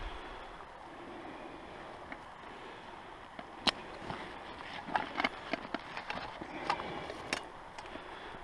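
Scattered sharp clicks and light knocks of camp gear being handled, starting about three and a half seconds in, over a steady outdoor hiss.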